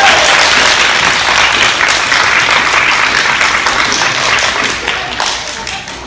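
Audience applauding, dense clapping that dies down toward the end.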